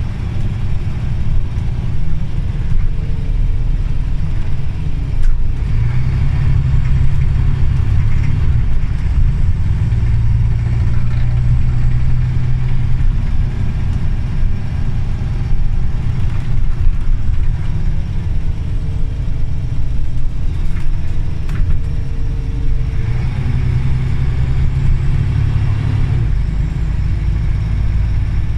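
Scania OmniCity CN94UA articulated city bus's diesel engine running with a steady low rumble. It pulls harder three times, about 6, 10 and 23 seconds in, with the engine pitch rising, and eases off in between, as the bus drives in traffic.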